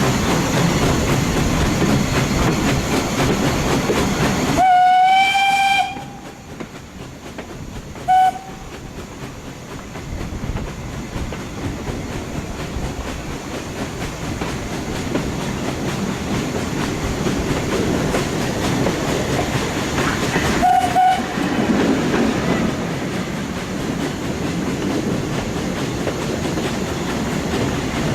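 Steam-hauled heritage train running slowly, heard from a carriage behind Furness Railway No 20: a steady rumble and clatter of wheels on the rails. About five seconds in, a steam whistle gives one long blast, then a short toot a couple of seconds later and another short one about two-thirds of the way through. The running noise drops away after the long blast and slowly builds again.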